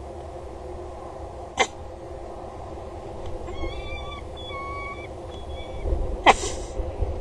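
Peregrine falcon calls at a nest box: a sharp click about a second and a half in, a run of short, level, clear notes around the middle, and one loud, sharp cry sweeping steeply downward near the end. A steady low rumble runs underneath.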